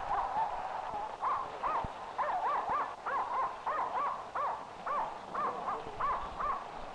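Dog whining, a run of short rising-and-falling whimpers, about two a second, that stops shortly before the end.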